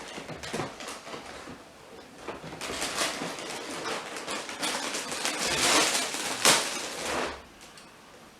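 Clicks and knocks of things being handled in a small room, then a few seconds of rustling noise that stops suddenly near the end.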